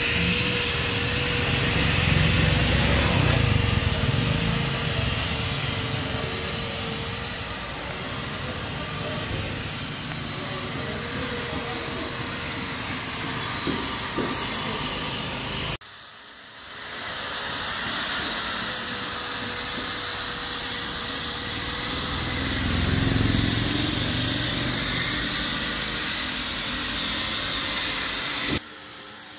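Electric angle grinder with a sanding disc running steadily with a high whine as it sands carved wood. The sound breaks off suddenly about halfway through and again near the end, then picks up again.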